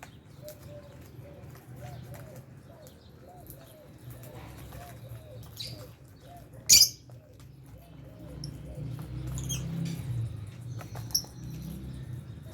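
Pet lovebirds and budgies in an aviary chirping, with scattered small clicks and a soft low note repeated about twice a second in the first half. One loud, shrill chirp comes about seven seconds in, and a few shorter high chirps follow near the end.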